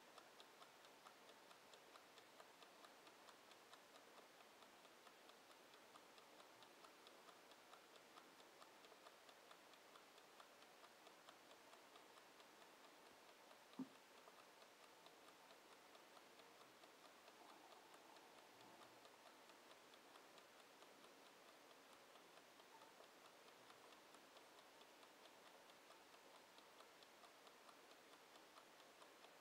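Faint, steady ticking of a wind-up mechanical kitchen timer counting down, with one brief louder click about halfway through.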